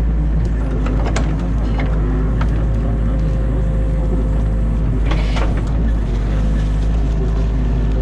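An excavator's diesel engine runs steadily, heard from inside the cab. Sharp cracks and snaps of dam branches break over it, with a cluster of them about five seconds in.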